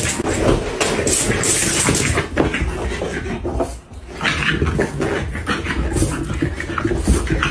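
French bulldog making dog noises as it scurries about, a dense unbroken run of sound that dips briefly about four seconds in.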